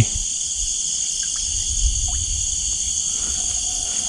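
Night chorus of crickets and other insects, a steady high-pitched trilling in several pitch bands, with a few faint short chirps and a brief low rumble about two seconds in.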